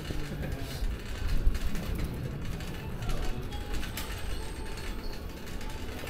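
City bicycle with a front basket rattling and ticking as it rolls over brick paving, over a steady low rumble.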